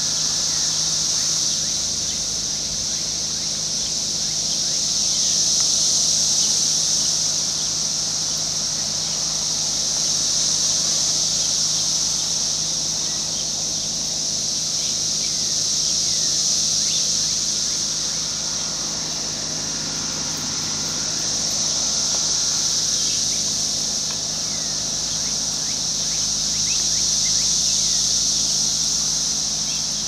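Brood X 17-year periodical cicadas singing in a dense chorus: a continuous high-pitched buzzing drone that slowly swells and fades, about every five or six seconds.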